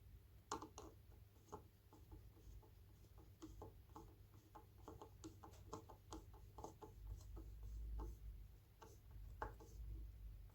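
Faint, irregular small clicks and ticks of a Phillips screwdriver working a screw into wood, over a low steady hum.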